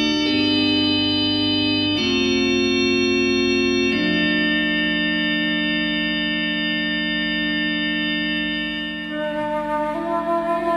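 Organ music: held chords that change about every two seconds, with a higher melody line coming in near the end.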